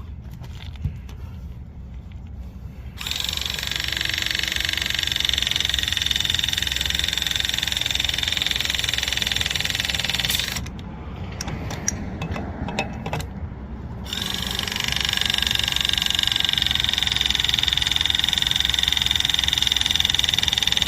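Pipe press tool running two press cycles on a press union fitting. Each is a steady motor whine of about seven seconds: the first begins about three seconds in, and the second starts a few seconds after the first stops and runs to the end. A few clicks and knocks fall between the two cycles.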